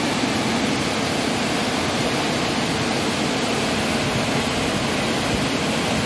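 Waterfall pouring over rocks into a plunge pool close by, a steady, even rush of water.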